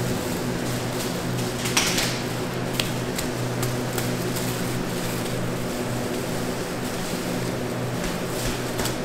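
Steady mechanical hum of bakery machinery, with scattered clicks and knocks; the loudest is a short clatter about two seconds in.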